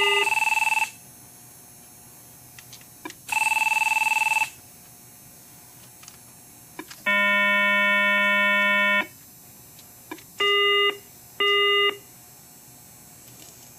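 Signalling sounds of a 1A2 key telephone system with a Valcom intercom: a telephone buzzer and electronic signal tones sounding in separate steady bursts. There is a buzz of about a second at the start and another about three seconds in, a two-second buzz around the middle, and two short tones about a second apart near the end, with a few faint button clicks between them.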